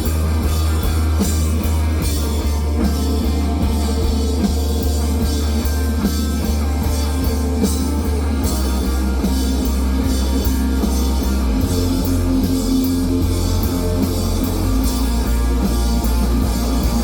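Live rock band playing loud: drum kit, guitar, and a heavy bass line that changes note a few times.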